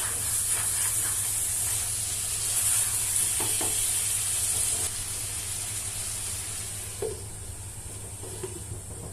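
Chicken pieces and fried potatoes sizzling in a pan of curry masala, stirred with a utensil that knocks and scrapes against the pan a few times. The sizzle eases after about five seconds.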